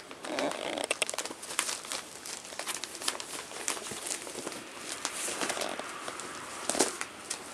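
Crinkling and rustling from month-old rough collie puppies at play with a toy: many irregular little crackles, with a louder rustle near the end.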